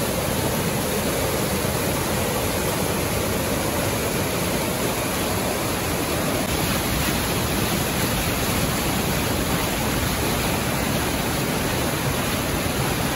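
Steady, loud rush of white water from a cascade of overflowing lake water running close beside and under a wooden boardwalk.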